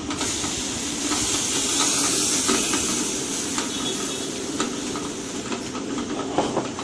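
Granulated sugar poured into a plastic food bag: a hissing rush that starts at once and tapers off after about five seconds. Beneath it is the steady hum of the continuous band sealer running.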